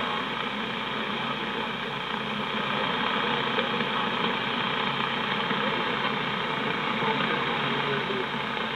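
Grundig Satellit 800 Millennium shortwave receiver playing a weak AM signal on 5850 kHz through its speaker: mostly steady static hiss, the broadcast barely above the noise. The weak signal sits around S3 to S4 on the smaller K180WLA antenna.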